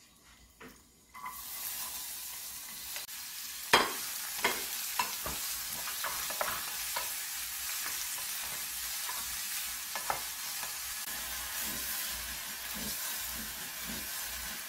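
Chopped onion and green onion stir-frying in hot oil in a small frying pan, sizzling steadily from about a second in. A plastic spatula knocks and scrapes against the pan as the vegetables are stirred, with the loudest clack about four seconds in.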